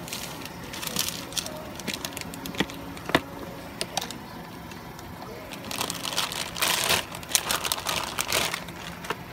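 Hard plastic carry case being opened, with scattered sharp clicks and knocks from its lid and latches, then a run of loud crinkling from about six seconds in as the clear plastic bag wrapped around the airsoft pistol is handled and lifted out.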